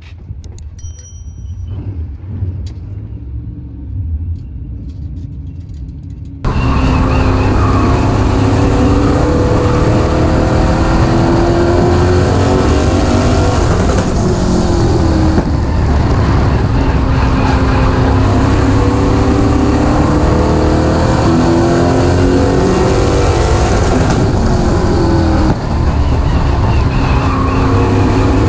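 Late model race car engine running at speed on track, its pitch climbing for several seconds and then dropping, over and over. About six seconds in, a quieter, more distant engine sound gives way suddenly to loud, close engine sound.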